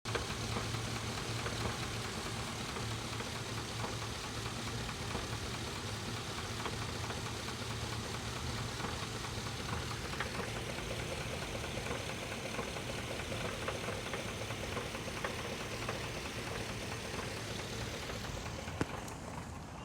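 GM 5.3 L Vortec V8 idling steadily with a repeated knock from inside the engine, which the owner takes for a rod knock. There is one sharp click near the end.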